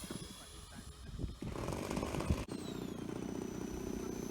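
Radio-controlled scale Boeing 737 model's engine fans running with a steady high whine over a low buzz, broken by a sudden cut about two and a half seconds in.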